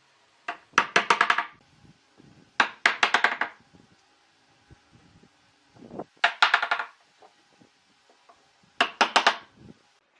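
Hammer tapping in four short bursts, each a quick run of five or six strikes with a ringing tone.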